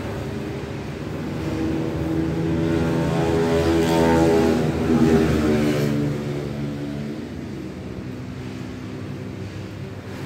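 A motor vehicle's engine passing by, growing louder to a peak about four to five seconds in and fading away by about seven seconds, over a steady low hum.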